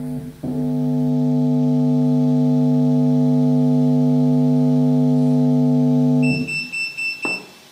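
A 12-inch subwoofer driven by an IRS2092S class D amplifier board plays a loud, steady, buzzy test tone, which cuts off about six seconds in. It is distorted rather than a clean sine: the board is producing jittering signals and artifacts. A brief high-pitched pulsing whine sounds near the end.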